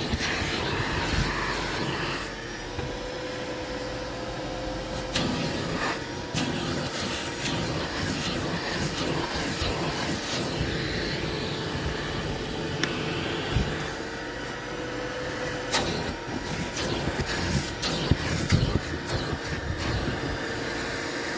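Shop vac running steadily with a constant motor whine, its hose nozzle sucking along car floor carpet, with sharp clicks now and then, more of them near the end.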